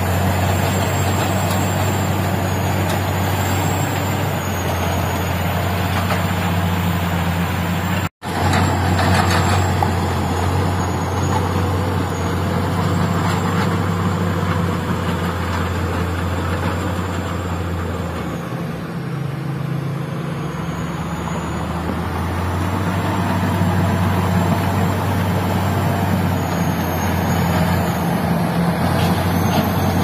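Large crawler bulldozers' heavy diesel engines running steadily under load, with other mining machines working in the first part. The sound cuts out for an instant about eight seconds in. The deep engine note drops away for a few seconds past the middle, then comes back.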